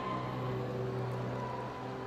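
A steady, unchanging low engine hum, like a vehicle idling, with a faint high whine above it.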